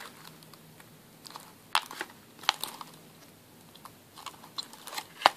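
Thin plastic bag holding metal bottle caps crinkling as it is handled, with a few separate sharp clicks, the loudest near the end.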